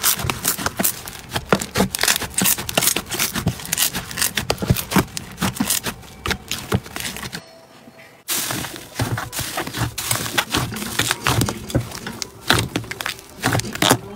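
Slime being squeezed and kneaded by hand, giving a dense stream of crackling, popping clicks as trapped air pockets burst. The sound breaks off briefly about halfway through, then the crackling goes on as a hand presses into a bubbly pink slime.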